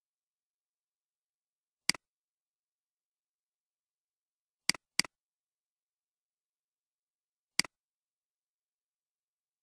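Computer mouse clicking four times: once, then a quick pair, then once more. Each click is a sharp tick followed at once by a fainter one as the button is pressed and released.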